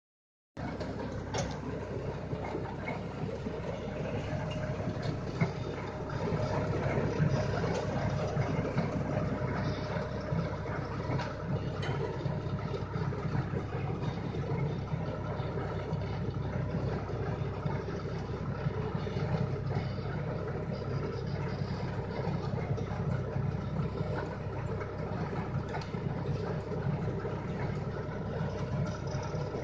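Tractor engine running steadily under load as it pulls a multi-row potato planter across a field, with a few sharp clicks.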